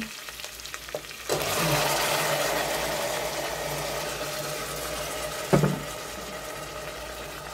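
Raw chicken breast pieces tipped into hot oil with sautéed onion, garlic and ginger in a stainless steel pot: a loud sizzle starts suddenly about a second in and slowly dies down. A single sharp knock comes a little past the middle.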